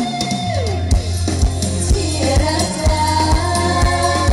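Live amplified Isan stage-show band music, with a drum kit keeping a steady beat of about two hits a second over a continuous bass line and a singing voice.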